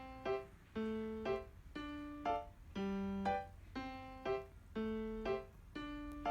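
Background music: a light keyboard tune with a short, repeating note pattern, one cycle about every second.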